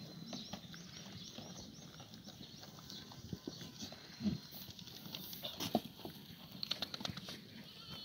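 A herd of black goats feeding at troughs: goats call out a few times over a steady shuffling and rustling, with a few sharp knocks and a quick run of clicks about seven seconds in.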